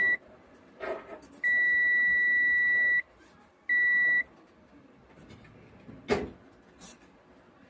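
Digital multimeter's continuity beeper sounding three times as its probes touch points on an RGB LED ring board during a check for a short: a brief beep, a long beep of about a second and a half, then a half-second beep, all at the same high pitch. A single sharp knock about six seconds in.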